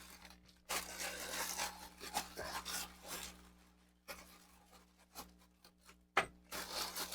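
Rustling, rubbing and scraping of a shipping package being handled and opened, followed by scattered small clicks and a sharp tap near the end. A faint steady hum lies underneath.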